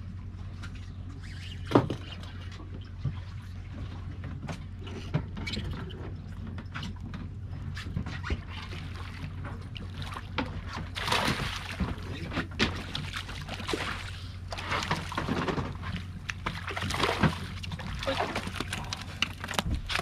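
Fishing boat's engine running with a steady low hum, with a sharp knock about two seconds in and a few lighter clicks. Through the second half, irregular rushing surges of noise come and go over the hum.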